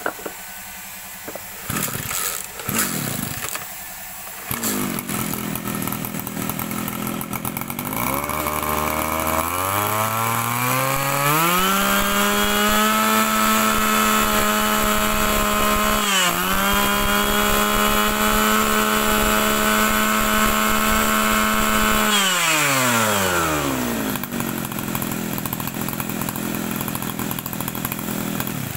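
Kioritz (Echo) 26cc two-stroke brush cutter engine starting after a few clicks, idling, then revved up over a few seconds to a steady high-speed whine with a brief dip in the middle, before dropping back to idle near the end.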